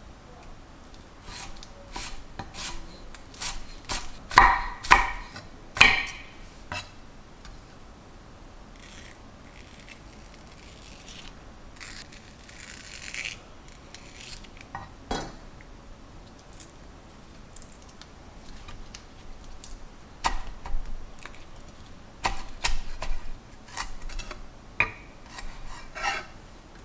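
Chef's knife cutting onion and then green onion on a wooden cutting board: irregular knife knocks on the board, loudest a few seconds in, quieter handling in the middle, and another run of quick taps near the end.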